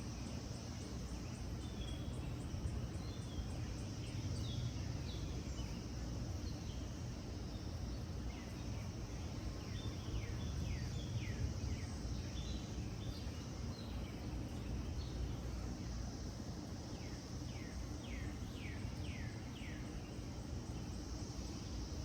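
Outdoor ambience: a steady high insect drone, with a bird calling in quick runs of short falling notes about halfway through and again near the end, over a low rumble.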